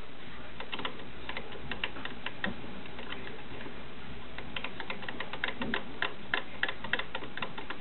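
Light, irregular clicks and taps from working a Singer 401A Slant-O-Matic sewing machine and its bobbin, coming more often after about four seconds.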